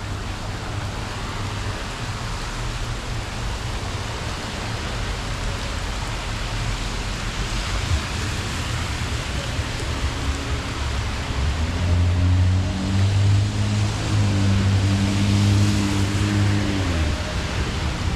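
Steady hiss of heavy summer rain falling. About ten seconds in, music from a bar across the river comes in faintly under the rain as low held notes that shift in pitch, then fades about a second before the end.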